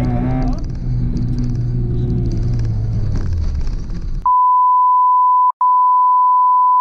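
Rally car engine heard from inside the cabin, its note falling as the car slows. About four seconds in, all other sound cuts out and a loud steady single-pitch censor bleep takes over, with a brief break partway through.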